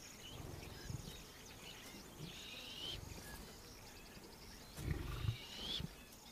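Lioness giving a few low grunts, the loudest about five seconds in, with high chirping calls repeating every few seconds behind.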